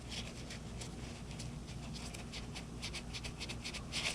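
Soft, irregular scratching and rubbing of gloved hands cleaning a dirt bike's throttle tube and housing, with a slightly louder scrape near the end.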